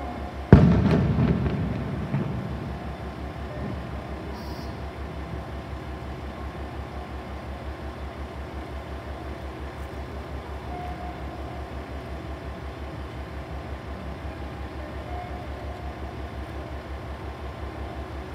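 KiHa 40 diesel railcar idling at the platform, its engine a steady low throb. About half a second in, a single sudden loud knock rings out and fades over about two seconds.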